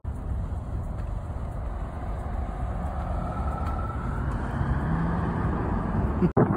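Bull elk bugling faintly, a thin rising whistle about halfway in, over a steady low rumble.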